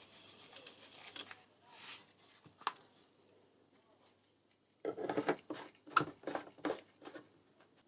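Caustic soda trickling faintly through a plastic funnel into a plastic jerrycan for about a second and a half. After a pause there is a quick cluster of plastic knocks and scrapes as the funnel is taken off and the screw cap is put on.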